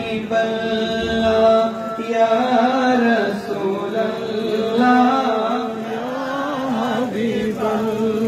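A man singing an Islamic gazal (devotional song) through a microphone, in long, wavering held notes.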